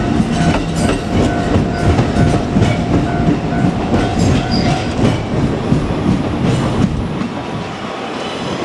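A JR Kyushu 787 series electric limited express train running past close by: a loud rumble with wheels clacking over the rail joints, easing off slightly near the end.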